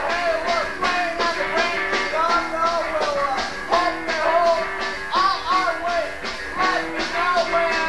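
Live rock band playing a song: a singing voice over guitar and drums keeping a steady beat.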